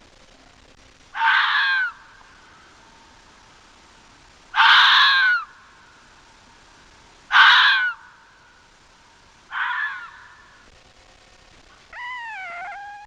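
A fox giving four harsh, screaming calls a few seconds apart, then near the end a shorter call that falls in pitch.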